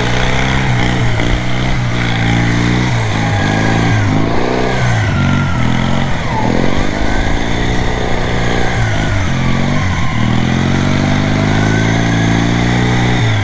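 Riding lawn mower engine, fitted with a cheap aftermarket exhaust in place of a straight pipe, running hard under load as it is driven through snow. The revs rise and fall repeatedly, dropping sharply about six seconds in and again near ten seconds before climbing back.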